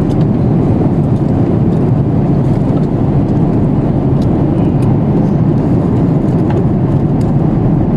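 Steady low roar of an airliner cabin in flight, the engine and airflow noise heard from a passenger seat, with a few faint ticks over it.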